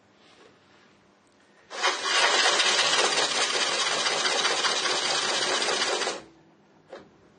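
Cordless electric drill running steadily for about four seconds, starting about two seconds in and stopping sharply. It is driving a high-speed-steel reverse boring bar that cuts a countersink into a plastic part.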